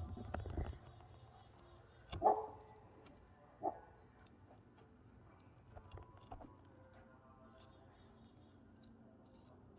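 A dog barking twice, about a second and a half apart.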